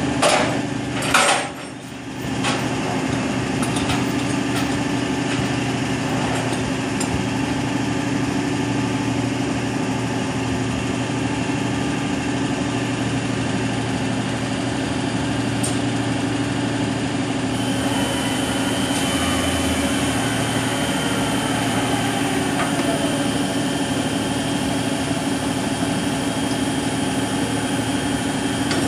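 An engine idling steadily, with a few sharp knocks in the first couple of seconds. About 18 seconds in, a thin high whine joins it.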